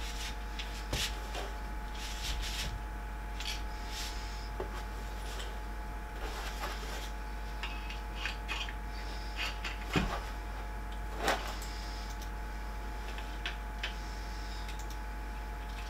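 Hand-assembly handling noises of 3D printer parts: irregular clicks, taps and rubbing of plastic and metal parts being fitted, with two louder knocks about ten and eleven seconds in, over a steady faint hum.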